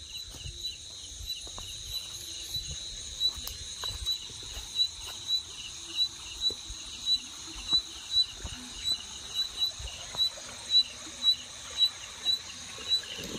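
Night insects chirping steadily in a high pitch, with regular soft steps through grass and brush about twice a second.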